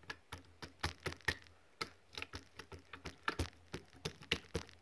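Runny liquid slime being squished and stretched by hand, giving an irregular run of sharp wet clicks and crackling pops, several a second.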